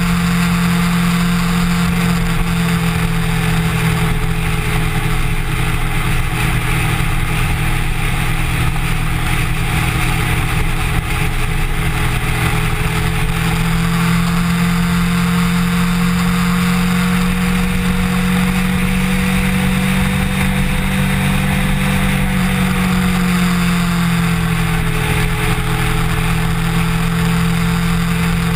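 Kawasaki Ninja motorcycle engine running at steady cruising speed. Its note rises slowly through the middle and eases back down after about twenty seconds. A steady rush of wind and road noise sits over it.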